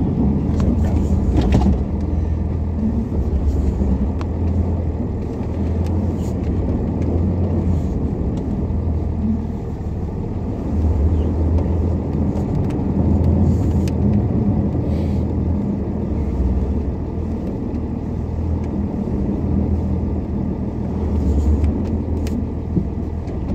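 Cummins 5.9-litre diesel of a one-ton Dodge pickup running, heard from inside the cab; its low note swells and eases every second or two. The engine is still cold and has not run in a while.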